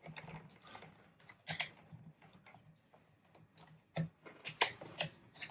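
Plastic toy machine gun being handled: scattered light clicks and ratchet-like taps of its moving parts, a few of them sharper.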